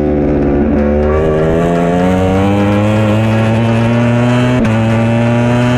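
Ducati Panigale V4 R WorldSBK superbike's V4 engine, heard onboard at racing speed. The pitch drops slightly at first, then climbs steadily under acceleration, broken briefly about a second in and again about four and a half seconds in.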